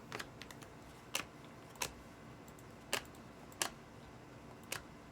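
Light, sharp clicks and taps, about six over five seconds at uneven spacing.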